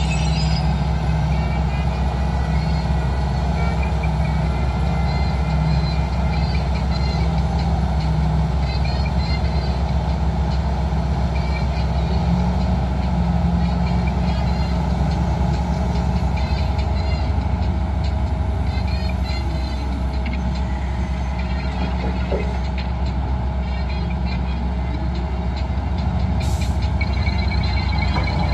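Heavy diesel mining machinery running steadily: a constant low engine drone, with light intermittent rattling higher up.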